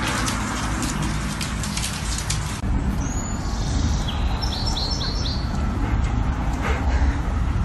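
Small birds chirping, including a quick run of about four short falling chirps, over a steady low rumble. Before it, a crackly clicking noise cuts off abruptly about two and a half seconds in.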